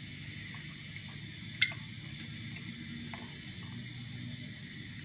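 Cooking oil poured from a plastic bottle into a hot non-stick frying pan, with a faint sizzle and a few small crackles. A single sharp click about a second and a half in.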